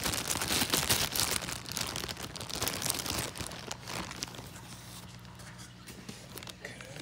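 Clear plastic shipping bag and packing material being handled and crinkled, a dense run of crackling that is loudest for the first three seconds or so and then thins out and fades. A faint low steady hum sits underneath.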